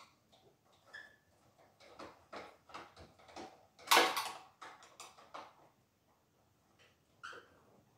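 Metal clicks and clinks of a wrench working loose the black-painted travel bolt behind the gas regulator of a drum coffee roaster, with one louder clank about four seconds in.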